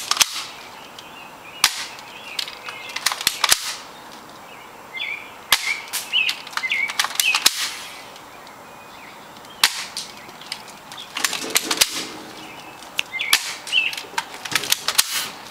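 Stinger R34 spring-action airsoft rifle being cocked and fired over and over: sharp snaps and clicks in quick clusters every couple of seconds.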